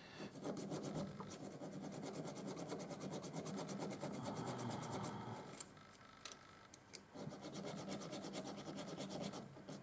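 Needle file rasping back and forth on a broken stud stuck inside a steel thread chaser, filing to split the stud. It stops for about a second and a half with a few light clicks, then carries on.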